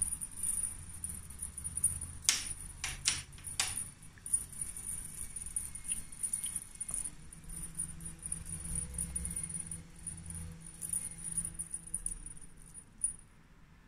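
Light jingling and rattling from a dangled cat teaser toy being jiggled, with three sharp clicks about two to four seconds in.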